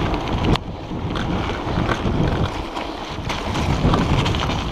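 Wind buffeting the camera microphone over the rush of mountain bike tyres on a dirt and gravel trail, with scattered clacks and rattles from the bike over bumps, a sharp one about half a second in.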